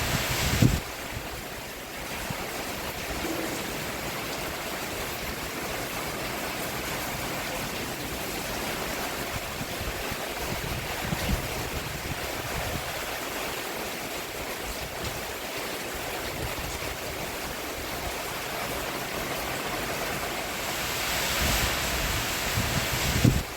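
Steady rain falling on a roof, a continuous even hiss of water. It swells louder near the end and drops back suddenly.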